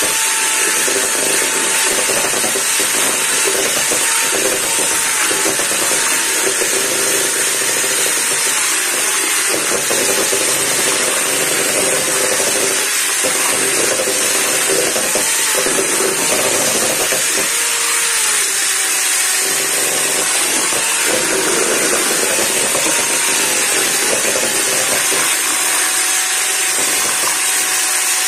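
Electric hand mixer running steadily, its twin beaters whisking runny cake batter in a stainless steel bowl; the motor's whine wavers a little in pitch as the beaters work through the batter.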